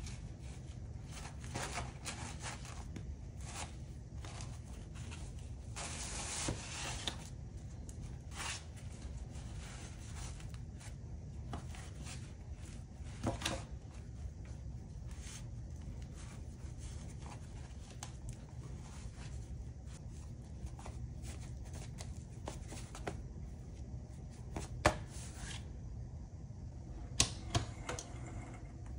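Handling noises of a flexible armor panel in a black fabric carrier being slid, pressed flat and picked up: scattered light rustles and taps over a low steady hum. There is a longer rustle about six seconds in and a few sharper taps near the end.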